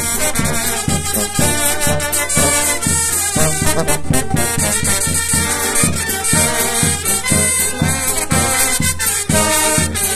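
Mexican village brass band (banda de viento) playing a lively tune. Sousaphone carries the bass line, and trumpet and alto horn play the melody, over a steady beat from bass drum with cymbal and snare drum.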